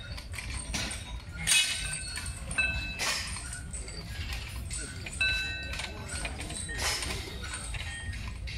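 Heavy steel chains hanging from a homemade barbell of rusty steel discs clinking and rattling as the bar moves through squats and lunges. Twice the metal gives a short clear ring.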